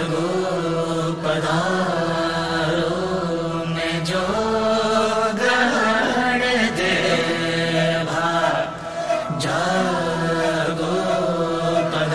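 Music: voices chanting a melodic line over a steady low drone, with a few sharp accents.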